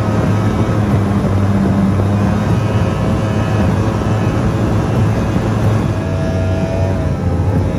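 Bullet 130 SV boat running at speed. Its outboard engine drones steadily under the rush of wind and water.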